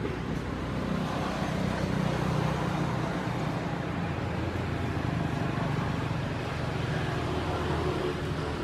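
Steady low hum of a motor vehicle's engine with road noise, swelling slightly a second or two in.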